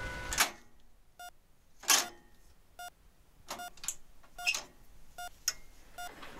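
Short electronic beeps, irregularly spaced at about one a second, of the kind a hospital patient monitor gives. Louder, brief hissing swishes come between them, the loudest about half a second in and near two seconds.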